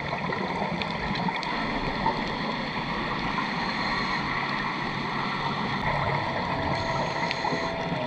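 Underwater ambient noise picked up by a diving camera: a steady hiss and rumble with a few faint steady tones running through it.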